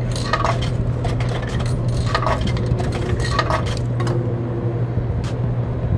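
Coins being fed into a drink vending machine, clinking and dropping through the coin mechanism in a run of short clicks and a few brief rings, over a steady low hum.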